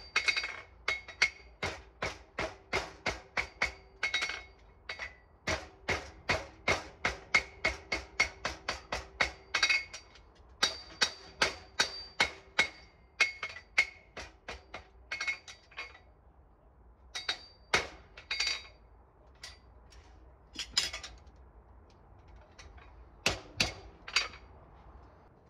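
Farrier's hammer striking a horseshoe held on a steel anvil, fast runs of ringing metal-on-metal strikes, about three a second, as the shoe is shaped. The strikes thin out past the middle, with a longer pause, then a last few blows near the end.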